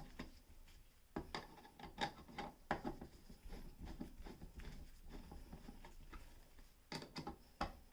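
Faint handling noises: light scrapes and a few small clicks and knocks, the clearest near the start and again near the end, as a wall light switch is unscrewed and worked loose from its box.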